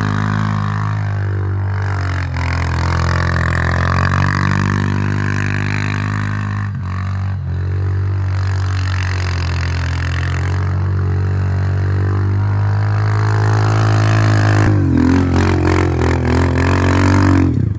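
Linhai 400S Dragonfly ATV's single-cylinder four-stroke engine running under throttle. Its pitch dips and climbs again several times, with a fall near the start, a dip around the middle and a rise and fall near the end.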